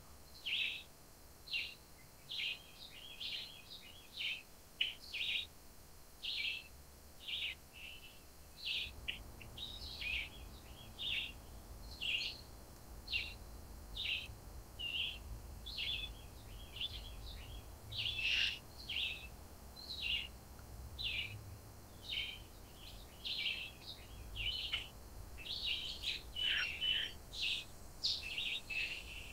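Wild forest birds chirping and calling, many short high chirps following each other several times a second. A low rumble comes in about nine seconds in and stays underneath.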